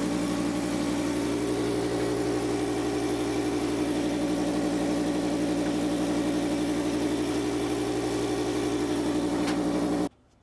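Spray rig machinery for the cementitious coating (pump and air supply) running steadily with a constant mechanical hum, cutting off abruptly just before the end.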